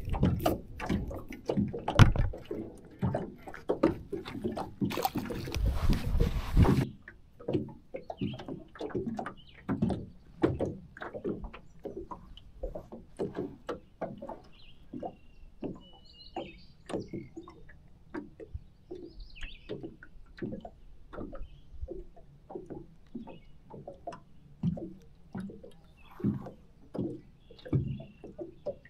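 Small waves lapping against the hull of a fishing boat in a steady run of soft slaps, about two a second, with birds chirping faintly. For the first several seconds louder knocks and rustling from handling at the boat, with a hiss that cuts off suddenly about seven seconds in.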